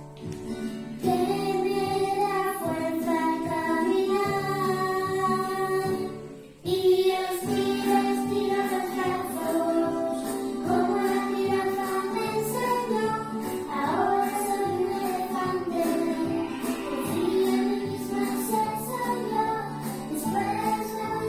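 Recorded children's song: sung vocals over instrumental backing, with a brief break about six and a half seconds in before the song carries on.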